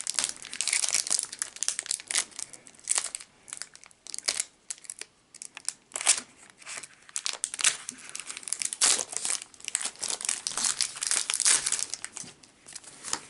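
Foil wrapper of a Pokémon TCG Brilliant Stars booster pack crinkling and tearing as it is opened by hand, in irregular sharp crackles.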